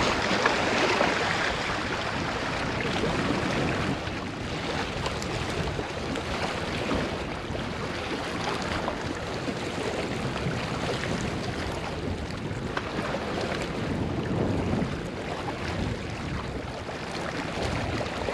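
Steady outdoor wind noise buffeting the microphone, with water sounds beneath it: an even rushing hiss with no distinct tones.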